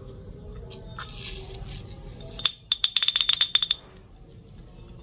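Coffee grounds rustling as they are scraped and shaken out of a hand coffee grinder's metal catch cup, then a fast run of about a dozen sharp, ringing metal taps on the cup, about halfway through, knocking the last grounds out.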